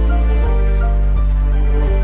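Background music: slow, soft instrumental with sustained chords over a deep bass, changing harmony every second or so.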